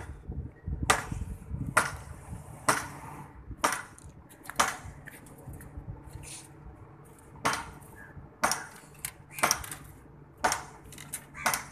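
Hammer blows on a building site, about one strike a second, with a short break partway through.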